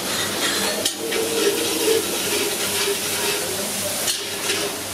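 Vegetable pulao cooking in a large pot at a street stall: a steady hiss of frying and stirring, with a sharp metal clink about a second in and again near the end.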